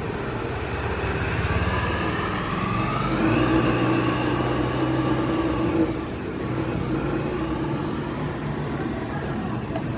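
A motor vehicle engine running and revving: its pitch climbs over a couple of seconds, holds steady, then fades about six seconds in, over a steady hiss.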